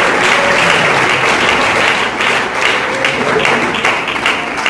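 Congregation applauding, the clapping thinning out toward the end.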